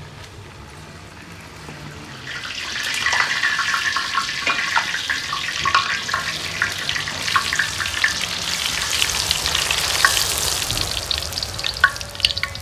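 Pişi (Turkish fried dough) frying in a metal pan of hot oil. A loud sizzle with many small crackles and pops starts about two seconds in, as the dough goes into the oil, and keeps going.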